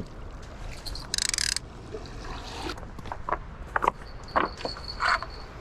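Fishing reel clicker ratcheting in a short, rapid run of clicks about a second in, followed by scattered clicks and knocks from handling the rod and reel.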